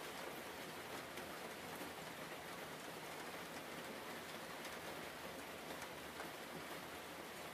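Steady rain sound: a soft, even hiss with faint scattered ticks like drops.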